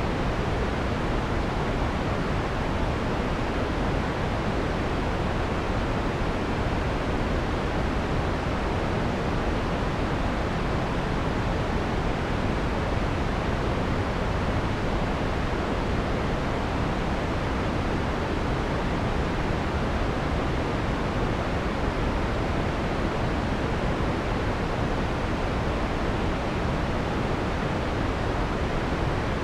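Generated white noise with its harsh high end filtered out, so it sounds soft and full, with the highs falling away. It is steady and unchanging throughout.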